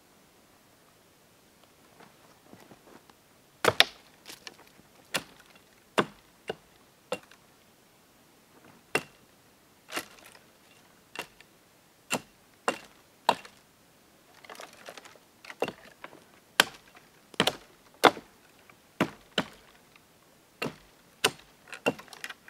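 Hatchet chopping the dead, leafless branches of a fallen tree: about two dozen sharp blows into dry wood at an uneven pace of roughly one a second, starting a few seconds in.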